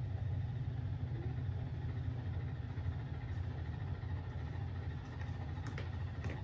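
A washing machine running with a loud, steady low rumble, with a couple of faint clicks near the end.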